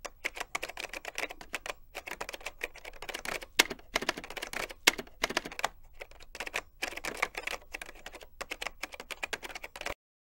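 Typing sound effect: a fast, uneven run of keystroke clicks that stops abruptly near the end, timed to on-screen text being typed out letter by letter.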